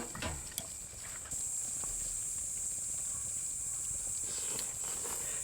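Steady high-pitched chorus of insects, growing louder about a second in, with a few sharp clicks near the start.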